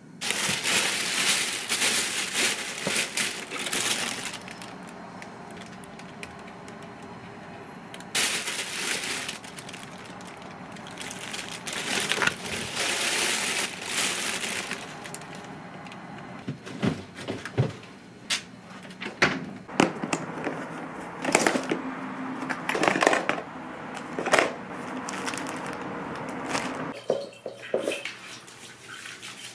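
Thin plastic bag rustling and crinkling in several long bursts as it is handled and items are pulled out, followed by scattered sharp clicks and knocks.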